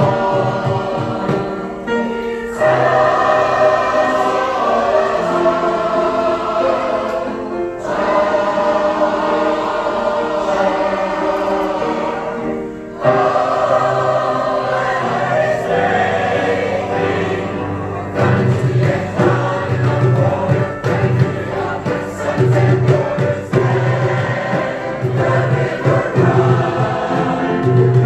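Mixed choir of men and women singing with upright piano accompaniment, in phrases with brief breaks between them, the sound growing fuller in the second half.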